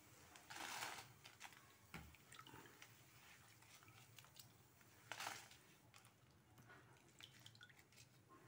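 Faint wet rustling of dried red chillies being shifted in a pan of water, with two brief swishes, about half a second in and about five seconds in, and a soft knock about two seconds in.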